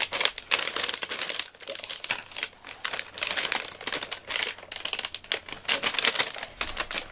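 Paper and plastic packaging crinkling and rustling in quick, irregular bursts as a taped parcel is handled and unwrapped by hand.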